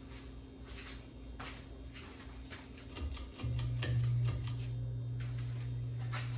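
Hunter Castleton ceiling fan: irregular light clicks, then about three and a half seconds in a steady low motor hum comes up and holds. The fan has a bad capacitor, which keeps one of its speeds from working.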